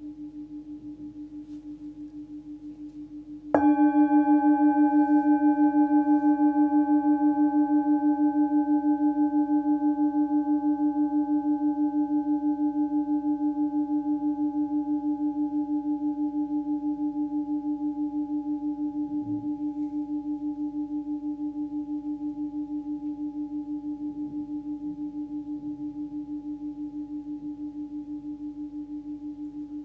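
16 cm Tibetan singing bowl tuned to about 299 Hz (D), struck once about three and a half seconds in, then ringing on with a low steady tone and higher overtones, wobbling gently in loudness and fading slowly. Before the strike it is still humming faintly from an earlier note.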